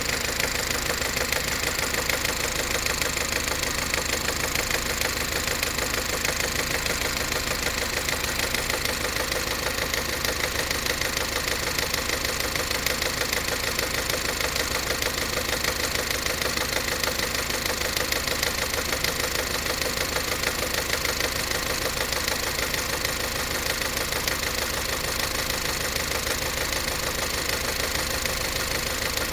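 Subaru Forester's CB18 1.8-litre turbocharged flat-four idling after a cold start, with a steady rapid knocking under the engine note. The owner takes it for something striking inside the cold engine, a noise that dies away once warm, with the newly replaced high-pressure fuel pump also clattering like a diesel.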